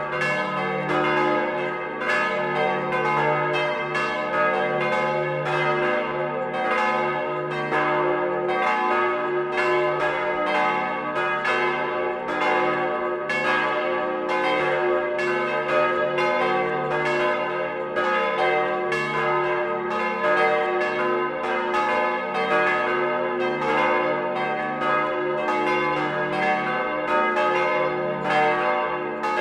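Several swinging bronze church bells, cast in 1949 by Petit & Gebr. Edelbrock, ringing together. Their frequent strokes overlap into a continuous peal with long ringing tones.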